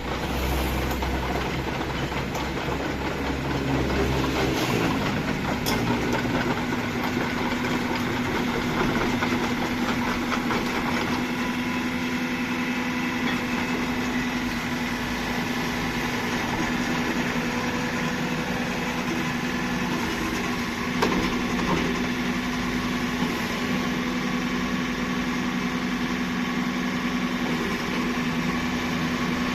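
Diesel engine of a Kubota RX-301 mini excavator running steadily. About five seconds in, its engine speed comes up from a deep rumble to a higher, even drone, and it holds there.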